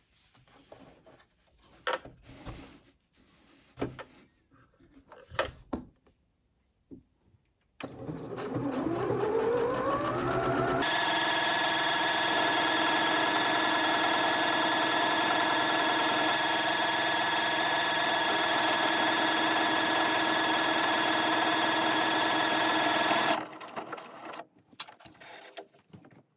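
Scattered clicks and knocks of handling, then a Janome HC8100 (DC3100/DG8100) computerized sewing machine speeds up with a rising whine about eight seconds in. It runs steadily for about twelve seconds, sewing an automatic buttonhole through denim, and stops abruptly. A few small clicks follow.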